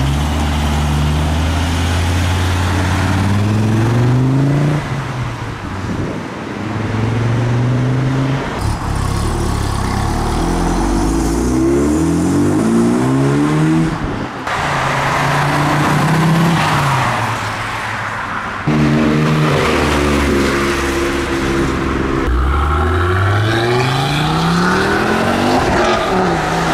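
Modified cars driving off one after another, their engines revving and rising in pitch as they accelerate away. The sound switches abruptly from one car to the next several times.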